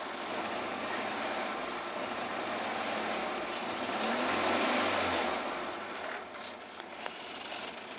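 Suzuki Carry ST100's small three-cylinder engine running at warm-up idle on a morning cold start, heard from inside the cab. The engine sound swells louder about halfway through, then falls back and quietens, with a few faint clicks near the end.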